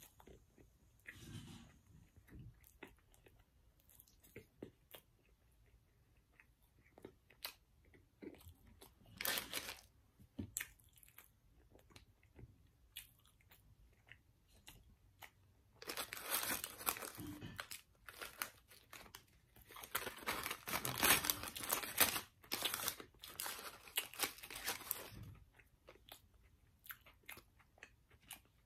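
Close-up chewing and crunching of fast-food breakfast, with small wet mouth clicks, growing into a longer, louder spell of crunching in the second half.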